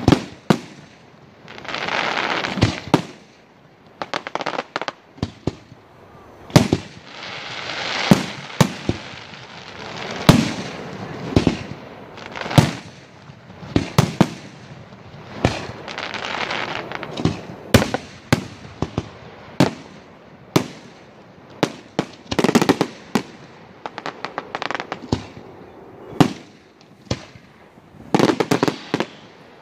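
Aerial firework shells bursting in a display: a steady run of sharp bangs, sometimes several in quick succession, with stretches of rushing noise between them.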